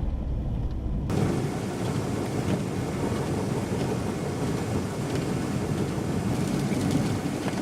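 Steady rush of strong blizzard wind, setting in abruptly about a second in over a low rumble.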